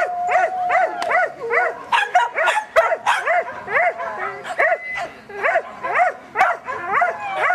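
Dog barking without a break, about three barks a second, each bark rising and falling in pitch, with a long steady whine under the first second.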